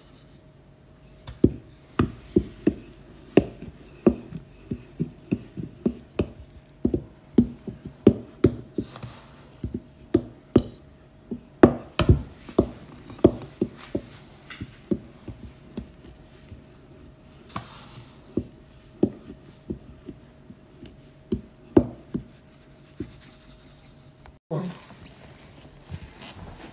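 A metal knife knocking and scraping against a plastic mixing bowl as garri is stirred into blended banana, which thickens into a stiff dough. There are irregular knocks, one to three a second, over a faint steady hum.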